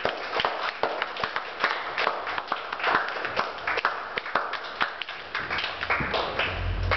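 Scattered hand-clapping from a small audience, irregular claps several times a second, thinning out near the end as a low hum comes in.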